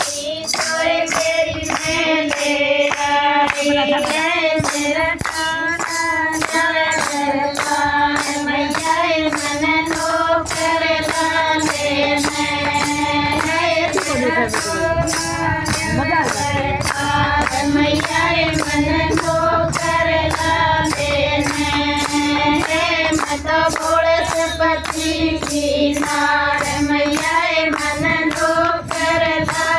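A group of women singing together, with a handheld tambourine's metal jingles shaken on a steady beat and hands clapping along.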